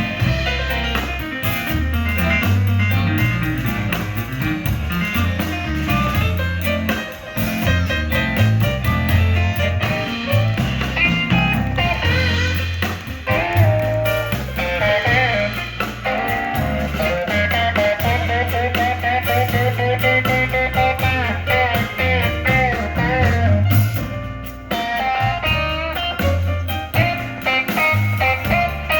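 Blues band playing an instrumental break: a guitar takes the lead line with bent and wavering notes over a stepping bass line and drums.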